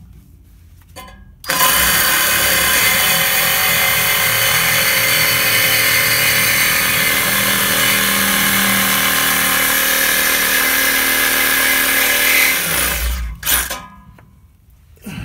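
Reciprocating saw with a Lenox Gold blade cutting into the steel exhaust pipe swaged onto the pre-muffler outlet, slitting it so the pipe can be split off. It starts about a second and a half in, runs steadily for about eleven seconds, stops, and gives one short burst after.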